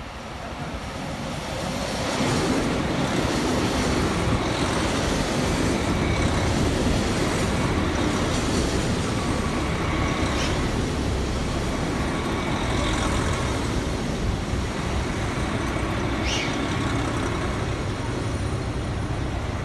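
Diesel express train of the KiHa 261 series pulling into the station and running past close by: engine and wheel rumble builds about two seconds in and then holds steady. There are two short high squeals partway through.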